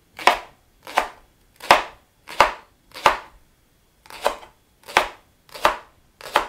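Chef's knife slicing a leek into thin rounds on a plastic cutting board: about nine steady cuts, roughly one every two-thirds of a second, each ending in a knock of the blade on the board, with a short pause about halfway through.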